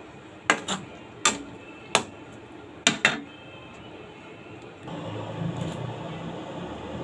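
Crockery and utensils clinking: six sharp clicks in pairs and singles with short ringing tails over the first three seconds. About five seconds in, a steadier low rustling handling noise starts.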